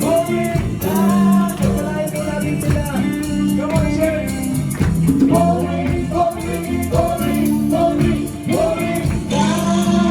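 Live worship band music: a sung vocal line over guitar, with a steady tambourine-like hand-percussion rhythm.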